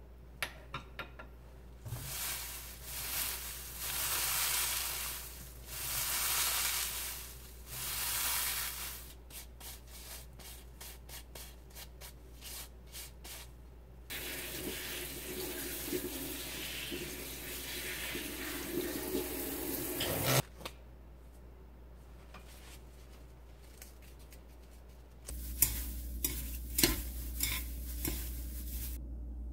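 Gloved hands crushing and tearing dried green laver in a frying pan: dry rustling and crackling in swells, then quick small crinkles. Near the end a low hum comes up while wooden spatulas stir and knock the laver against the pan.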